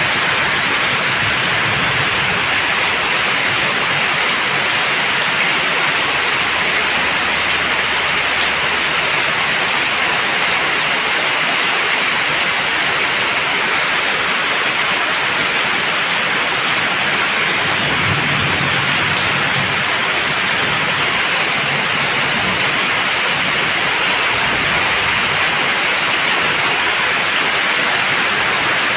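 Heavy rain pouring steadily, splashing onto wet pavement and into puddles, a dense, even hiss.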